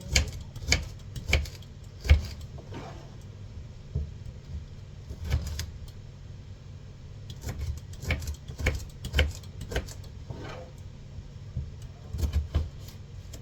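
A knife knocking on a cutting board at an irregular pace as fruit is cut up, over the steady low hum of a washing machine running.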